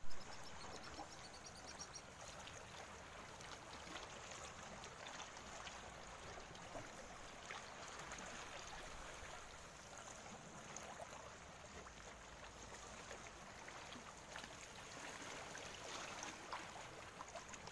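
Calm sea water lapping, a steady faint wash with many small splashes and trickles.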